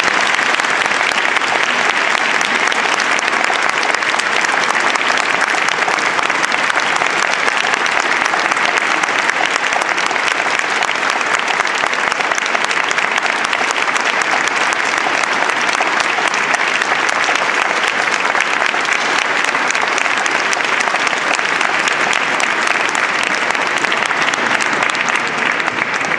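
Audience applauding steadily, a dense clapping that keeps up at an even level.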